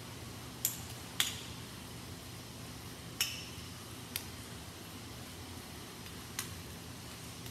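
Small white plastic USB phone-charger cubes clicking as they are juggled: five sharp, separate clicks a second or more apart, the loudest about a second in, over a steady low hum.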